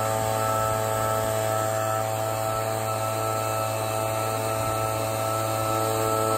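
Gas-powered backpack leaf blower running at an even, unchanging speed, a steady engine hum.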